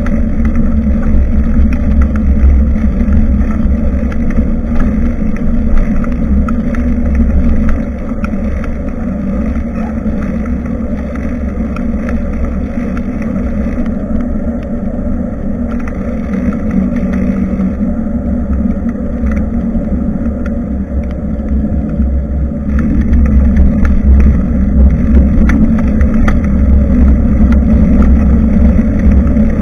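Wind buffeting the built-in microphone of a rear-facing action camera on a moving bicycle, with road noise and small rattles. It gets quieter about eight seconds in and louder again a few seconds past the twenty-second mark.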